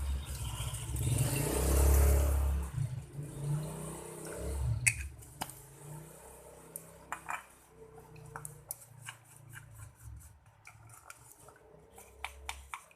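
Talcum powder being shaken from its plastic bottle into a bowl: rustling handling noise with a low rumble for the first few seconds, then a sharp click and a run of light plastic taps and clicks.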